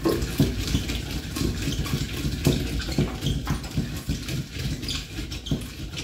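Wooden pestle rubbed in circles against soaked black-eyed beans in a wooden mortar, with repeated dull knocks about twice a second, working the skins loose to peel the beans.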